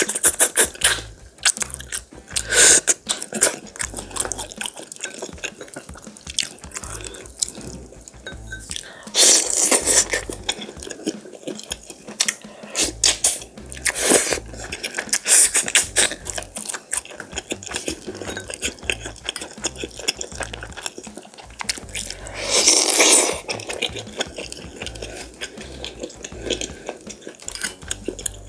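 Close-miked eating sounds as pork back-bone meat from gamjatang is sucked and chewed off the bone by hand. There is continual wet smacking and clicking, and a few louder sucking slurps, the longest about 23 seconds in.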